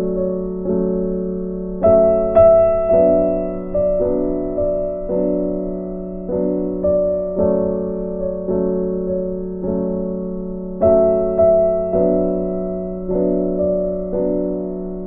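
Slow, gentle piano music. A new note or chord is struck about once a second and left to ring and fade, over a steady low bass note.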